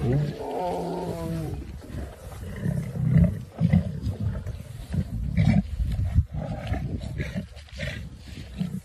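Lions calling: a drawn-out pitched call in the first second and a half, then a run of short low calls, about two a second.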